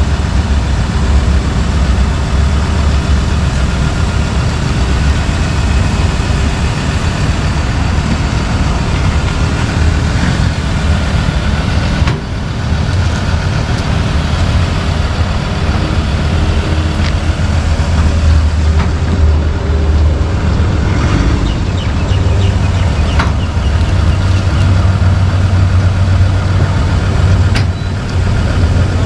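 Vehicle engine running at low speed with a deep, steady rumble. The rumble dips briefly twice.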